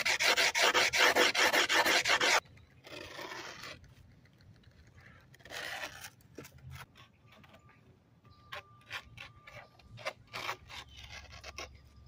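Palms rubbing quickly back and forth over new sandpaper-like skateboard grip tape to press it onto the deck, a dense rasping that stops about two and a half seconds in. After that come shorter scattered scrapes and light clicks as the grip is worked along the deck's edge.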